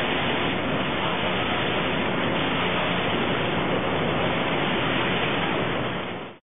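Steady, even noise of sawmill machinery as a HewSaw log positioner's toothed feed rolls grip and turn a log. The sound fades out quickly about six seconds in.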